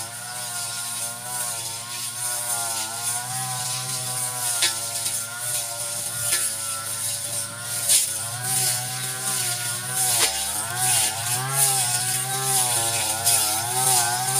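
Brush cutter engine running hard while cutting grass, its pitch wavering up and down as the cutting head meets the growth, with a few sharp ticks of debris being struck.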